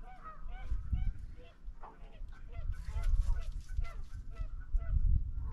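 A flock of birds calling: many short rising-and-falling calls, two or three a second, with low thumps underneath.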